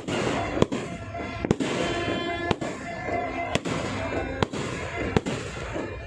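Fireworks going off over a large crowd: about seven sharp bangs at uneven intervals of roughly a second, over a constant din of crowd voices.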